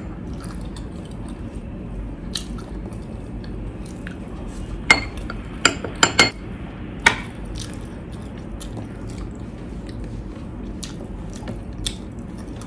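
Eating sounds: a spoon clinking against glass bowls of sauce and chewing, with a handful of sharp clinks bunched around the middle, over steady low room noise.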